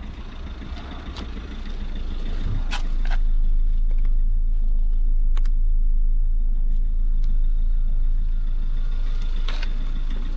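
Alfa Romeo MiTo's 1.3 JTDm diesel engine idling steadily, getting louder about two seconds in. A few short clicks and knocks sit on top.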